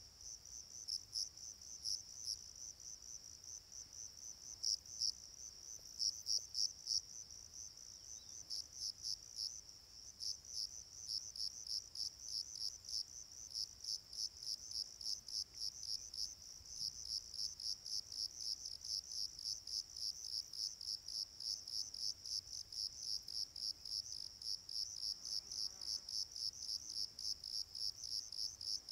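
Crickets chirping: a steady, even train of short, high-pitched chirps.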